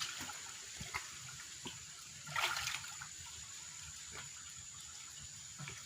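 Shallow muddy water being stirred and sloshed by people groping for fish, with small scattered splashes and one louder splash about two and a half seconds in.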